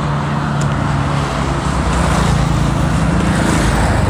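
Motorcycle engine running as it comes up along the road and passes close by, growing louder toward the end, over steady road-traffic noise.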